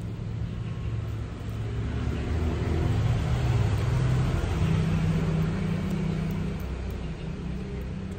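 Low engine rumble of a motor vehicle, building over the first few seconds and easing off toward the end.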